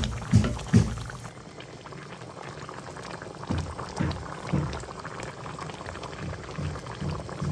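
Chicken mechado sauce bubbling as it simmers in the pan.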